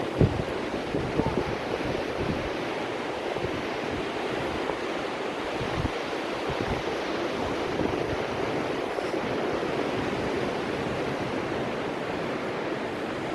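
Ocean surf washing on the shore as a steady rush, with wind gusting and buffeting the microphone now and then.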